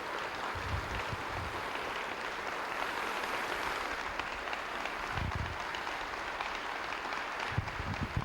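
An audience applauding steadily: a dense, even clapping.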